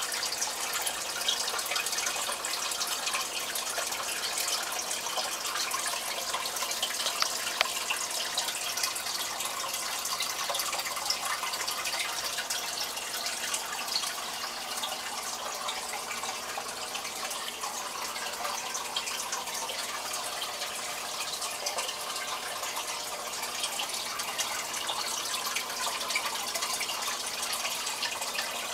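Aquarium water splashing and bubbling steadily at the surface, where a stream of water plunges in and drives a plume of bubbles down into the tank. A constant splashing hiss with fine bubbling ticks through it.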